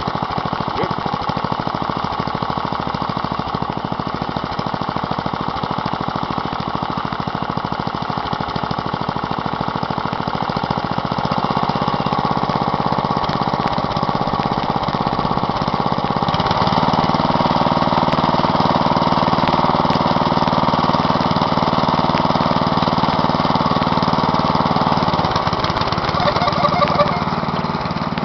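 Wheel Horse 211-3 garden tractor's 11 hp Briggs & Stratton petrol engine running steadily as the tractor is driven. It gets louder about a third of the way in and again just past halfway, then eases off near the end.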